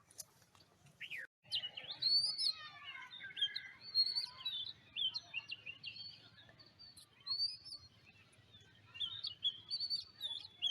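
Birds chirping: many quick, high calls overlapping in bunches, starting about a second and a half in.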